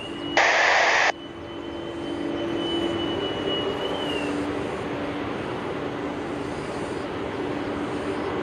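A short burst of hiss from the air traffic control radio that cuts off sharply about a second in, followed by the steady rushing noise of jet airliner engines, which builds over the next second and then holds, with a faint thin whistle in it for the first few seconds.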